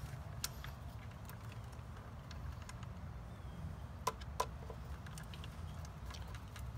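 Small clicks and taps of hands fitting a ground wire into the terminal block of a variable-speed pool pump's plastic wiring compartment, with two sharper clicks about four seconds in, over a steady low rumble.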